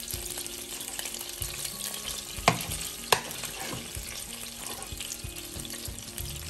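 Mackerel pieces and fish roe sizzling and crackling in hot oil in a frying pan. Two sharp clicks, about two and a half and three seconds in, from the metal spoon knocking against the pan.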